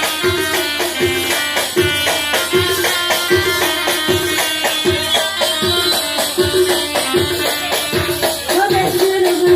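Instrumental music with a steady drum beat about two strokes a second, shaken and hand percussion, and a sustained melody line.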